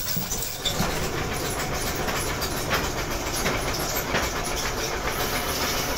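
Continuous metallic clatter of steel chain and workshop: many quick, irregular clicks and knocks of steel on steel over a low rumble.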